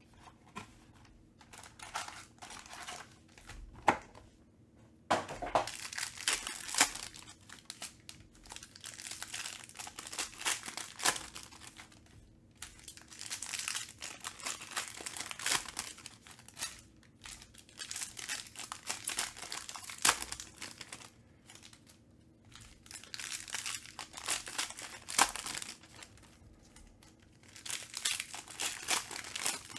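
Panini Contenders Baseball card pack wrappers being torn open and handled: crinkling plastic foil in bouts separated by short pauses, with a few sharp clicks.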